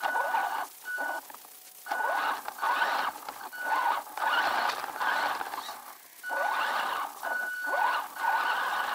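WLtoys 10428 RC truck's electric motor and drivetrain whining in surges as the throttle is worked, the pitch rising with each surge, with short lulls between. A thin steady high whine comes and goes.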